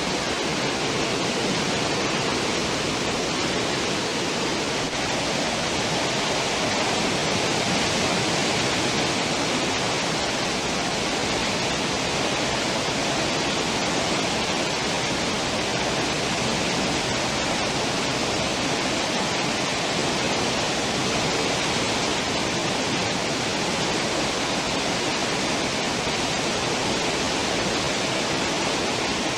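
Churning water of a cruise ship's stern wake: a steady, unbroken rush of foaming water.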